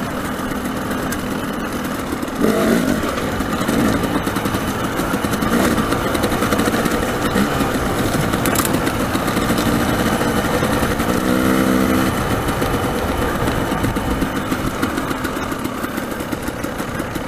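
Dirt bike engine running on a rocky downhill trail, the revs rising and falling as the rider works the throttle, with a sharp rev about two and a half seconds in.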